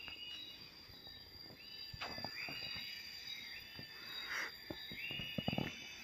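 Insects calling: a steady high drone, with repeated higher calls that swell and hold for about a second each. A few sharp knocks come about two seconds in and in a quick cluster near the end.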